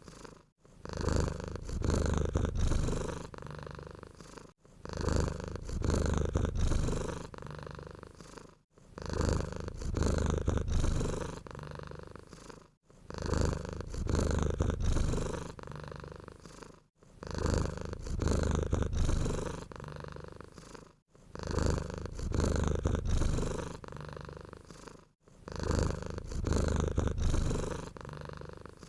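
Domestic cat purring in a cycle that repeats about every four seconds, each cycle loud at first and fading before a brief break.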